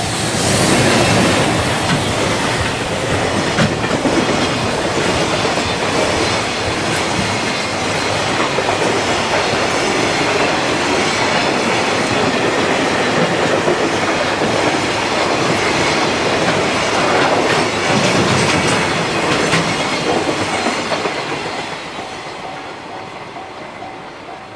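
EF210 electric locomotive and its container wagons passing close by: a loud, steady rumble of steel wheels on rail with scattered sharp clacks. The sound fades over the last few seconds as the train moves away.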